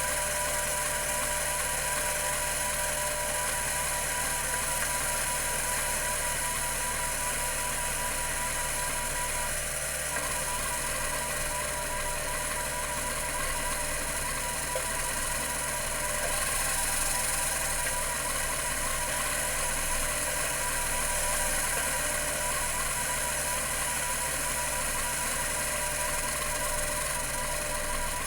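A Computer Memories Inc. CM-5412 full-height hard drive, with its 3600 RPM spindle and rotary band stepper actuator, running steadily with a continuous rapid mechanical chatter, typical of the heads stepping back and forth in seeks.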